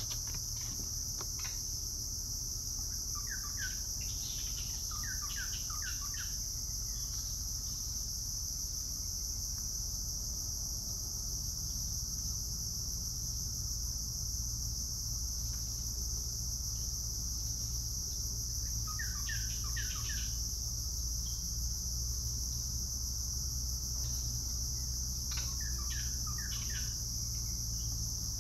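Steady high-pitched insect drone, with a low rumble under it. Three short runs of quick, falling bird notes cut through: a few seconds in, about two-thirds of the way through, and near the end.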